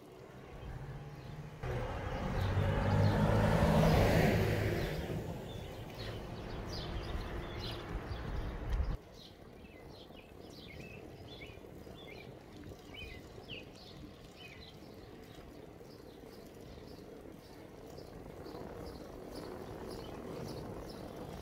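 A bicycle coasting, with the buzz of a Profile Elite rear hub's freewheel and wind rushing over the microphone. The sound starts abruptly about two seconds in, swells, and cuts off sharply about nine seconds in. After that comes quieter riding with birds chirping.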